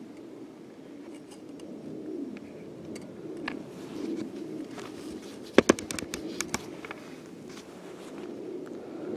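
Handling noise of a camera being moved about against camouflage clothing: a steady rustling rub, with a quick run of sharp clicks a little past halfway, the first the loudest.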